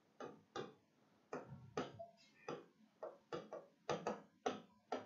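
Faint pen strokes on a writing board as words are written: short scratchy taps, about two a second, coming closer together near the end.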